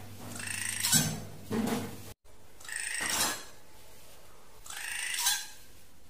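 A drongo calling over and over: a long call about every two seconds, with a short extra note after the first one.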